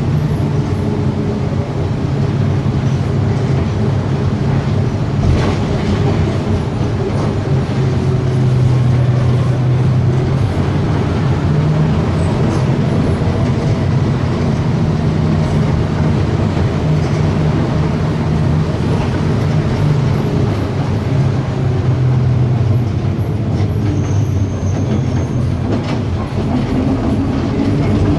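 Volkswagen 17.230 EOD bus's diesel engine running under way, its drone shifting in pitch as it works, with a rising whine near the end as it speeds up.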